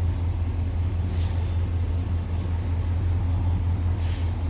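A steady low hum, like a motor or engine running, with a brief hissing sound about a second in and another near the end.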